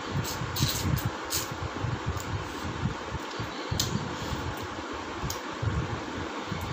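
Wet mouth clicks and lip smacks from a person licking food off her fingers, several close together at first, then a few scattered. Under them runs a constant low, fluttering rumble like air from a fan on the microphone.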